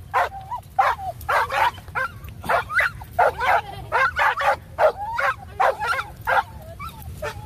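A dog barking over and over in short, high barks, about two or three a second.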